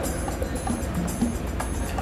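Background music at a moderate, even level, with short scattered notes and no clear impacts.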